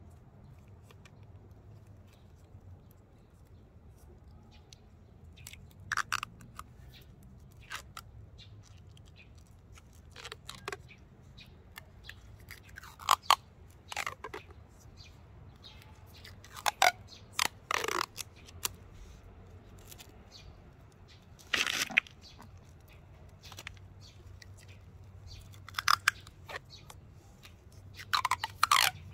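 Plastic grafting tape being pulled off its roll and stretched around a graft: short peeling, crackling sounds that come every few seconds.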